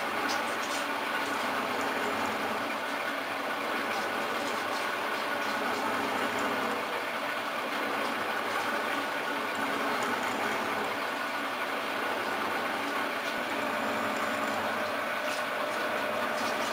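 Metal shaper running steadily while facing a one-inch carbon steel plate, a constant mechanical hum of several tones with faint light ticks.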